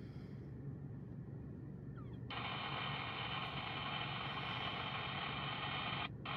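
Two-way radio opening up about two seconds in with a hissing, static-filled transmission and no voice, which cuts off abruptly near the end and keys up twice more in short blips, over a steady low hum.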